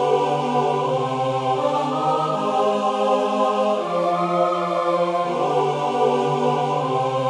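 Background music of slow, held chords that change about every second and a half.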